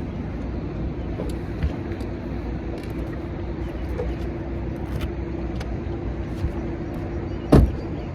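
A boat motor hums steadily over low wind and water rumble. A single sharp knock comes near the end.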